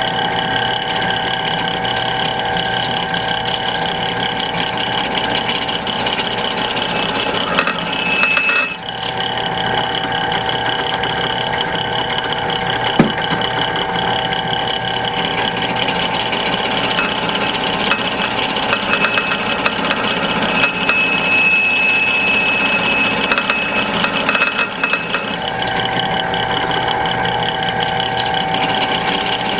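Drill press motor running steadily while a small pilot-hole bit cuts slowly through steel plate, with a thin high squeal coming and going in the middle.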